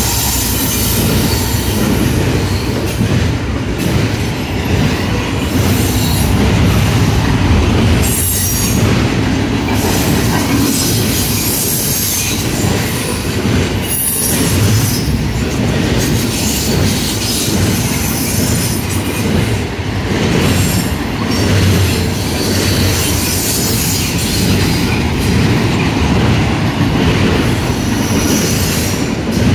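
Double-stack container well cars of a Norfolk Southern intermodal freight train rolling past close by: a steady, loud rumble and clatter of steel wheels on the rails.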